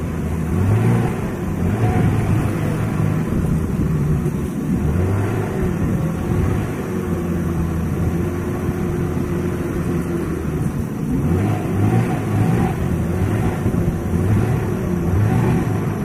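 Small boat engine on a wooden longboat running steadily under way, with a low drone that pulses slightly.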